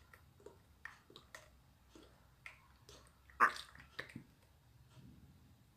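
Liquid cream pouring from a carton into a plastic bowl, with soft irregular glugs and splashes, and one short, sharp, loud sound about three and a half seconds in.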